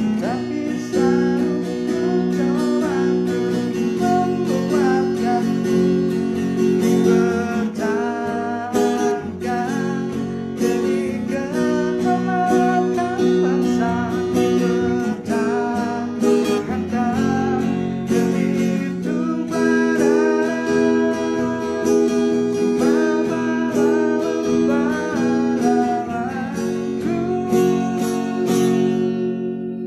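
Acoustic guitar strummed by hand, playing chords with a steady strumming rhythm.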